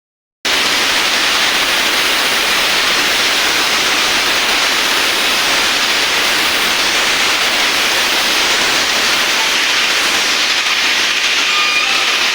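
CNC steel-cutting machine at work: a loud, steady hiss that starts about half a second in and holds without a break.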